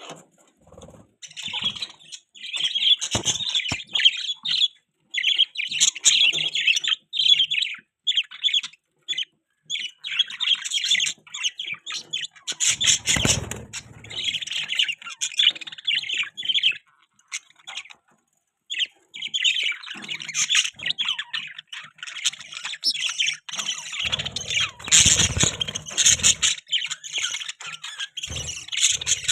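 A group of budgies chirping and chattering in rapid, continuous warbling, with brief pauses, including one of about two seconds just past the middle.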